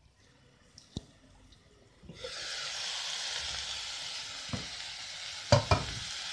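Chopped banana blossom stir-fry sizzling steadily in a frying pan, starting about two seconds in after near silence. A couple of short knocks near the end.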